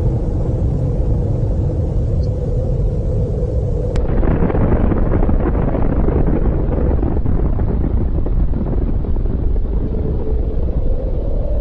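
Deep, continuous rumble of a huge explosion, with a fresh surge of rumbling about four seconds in.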